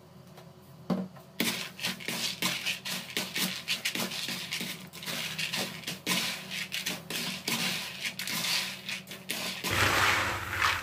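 Freshly fried peanuts rattling and scraping against a plastic basin as they are stirred and tossed with a metal slotted spatula: dense, rapid clicking from about a second in, loudest near the end.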